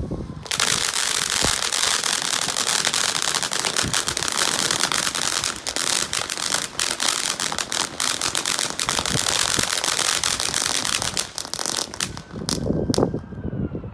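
Consumer firework from a Brothers Pyrotechnics selection crackling: a dense, rapid stream of small pops that starts about half a second in and cuts off about two seconds before the end.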